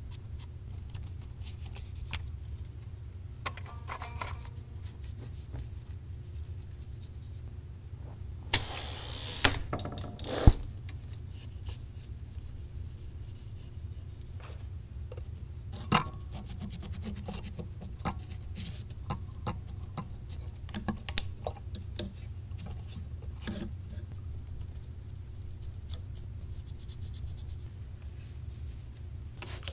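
Cotton swabs and a cloth rubbing and scratching over the metal works of a Smith Corona Silent typewriter, with scattered light clicks and taps on its parts. About a third of the way through comes a louder scraping rustle lasting about a second, followed by a few sharp clicks.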